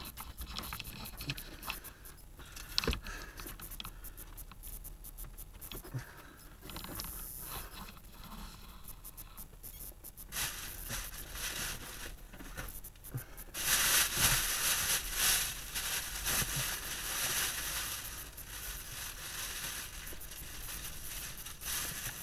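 Rustling and scraping handling noise inside a parked car's cabin, with scattered small clicks and knocks and a louder stretch of rustling about two-thirds of the way in.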